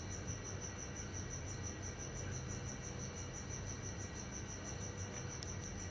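Steady high-pitched pulsing trill of an insect, about five pulses a second, over a faint low hum.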